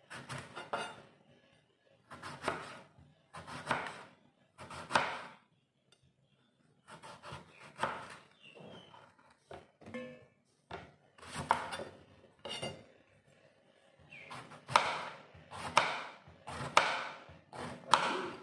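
A large kitchen knife slicing through an eggplant into rounds and knocking on the cutting board, about one stroke a second, with a short pause about six seconds in.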